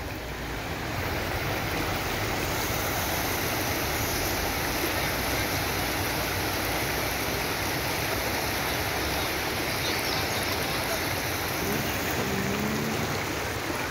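Muddy floodwater running across a street as a shallow urban river, a steady rush of flowing water.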